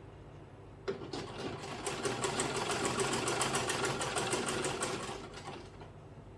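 Sewing machine stitching a zip onto fabric: it starts about a second in, picks up speed into a fast, even run of about ten stitches a second, then slows and stops near the end.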